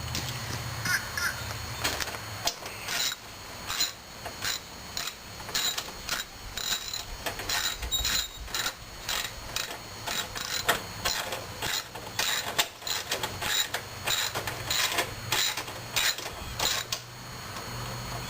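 Ratchet wrench clicking in a long irregular run of short strokes, two or three a second, as screws are driven into the mower frame.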